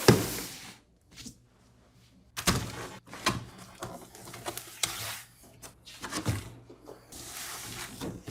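A few irregular thumps and knocks, each trailing off into a short hiss, with quieter handling-like noise between them.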